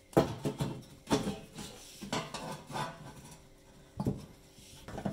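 Thin sheet-metal fan cover panel knocking and scraping against the inside back wall of a fan oven as it is pushed into place, about five clanks with short ringing tails.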